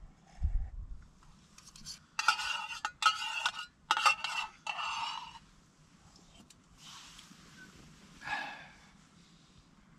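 Metal spoon scraping and clinking in a small metal camping pot, with several ringing scrapes between about two and five seconds in and one more near the end.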